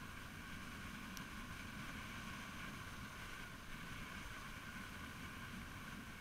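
Steady, fairly faint rumble of a motor scooter on the move, wind buffeting the camera's microphone over the engine and road noise, with a faint tick about a second in.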